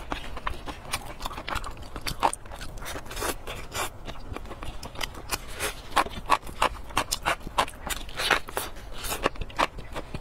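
Close-miked wet chewing and lip-smacking on braised fatty pork: a quick, irregular run of sticky clicks and smacks.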